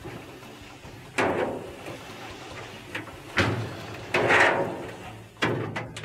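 Whirlpool dryer drum turned by hand on its rollers with the belt just fitted over the drive pulley and tensioner, in four pushes. Each push is a short rolling rush that fades, as the drum is spun to check the belt runs true.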